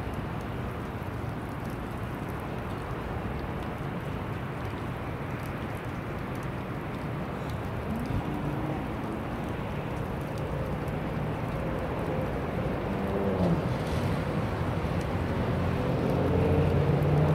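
Jet airliner engine noise: a steady rushing sound that grows louder through the second half, with engine hums that slide in pitch.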